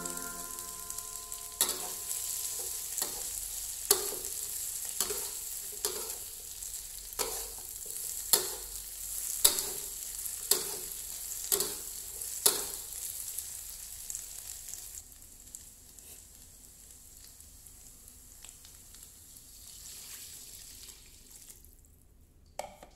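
Sliced sausages, chili and garlic sizzling in oil in an aluminium wok, with a metal spatula stirring and knocking against the pan about once a second. The knocks stop about halfway through and the sizzle fades away in the last third.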